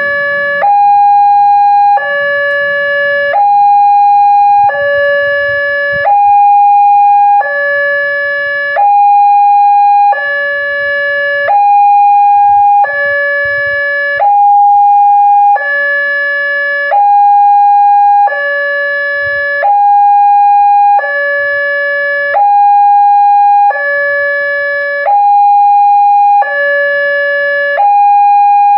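Railway level-crossing warning alarm from the pole-mounted loudspeaker: an electronic two-tone signal alternating evenly between a lower and a higher tone, one low-high pair about every 1.4 s. It warns that a train is approaching while the crossing is closed.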